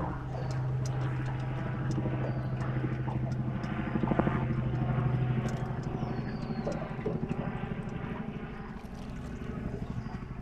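A motor's steady, low-pitched drone that weakens over the second half, with scattered light clicks.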